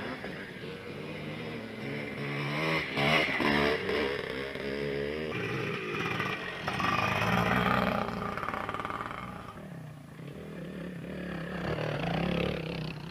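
Dirt bike engines revving up and down as bikes ride past on a dirt trail, the pitch rising and falling with the throttle, loudest as each bike passes close by.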